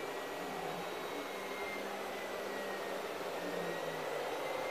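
Steady whirring machine noise with faint, slightly wavering tones in it, like a motor or fan running without pause.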